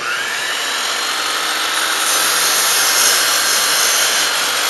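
Electric miter saw starting up with a rising whine, then running at full speed as its circular blade is brought down into a wooden board. The cut stops short of going all the way through.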